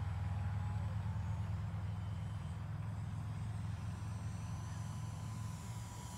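Steady low rumble of wind on the microphone, with the faint, even drone of a distant radio-controlled aerobatic model plane's engine above it.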